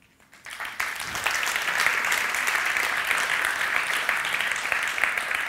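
Audience applauding. The clapping swells up about half a second in and then holds steady.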